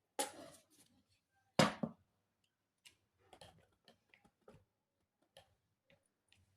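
A sharp scrape near the start and a louder knock about a second and a half in, then a scatter of faint light clicks. It is a cutter blade working against the floodlight's metal frame and front glass to loosen the sealing silicone.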